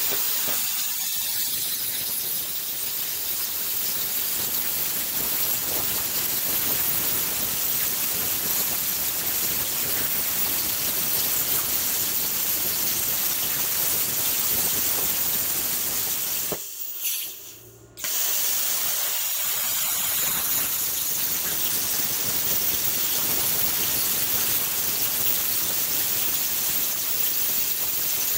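Vevor Cut 50P pilot-arc plasma cutter's AG60 hand torch cutting sheet metal at about 21 amps: a loud, steady rushing hiss of air and arc. A little past halfway it cuts out for about a second, then starts again.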